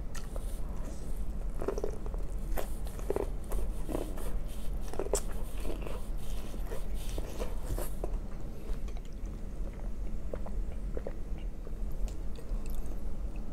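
Close-miked eating: irregular soft clicks and smacks of biting and chewing a mouthful of corn on the cob.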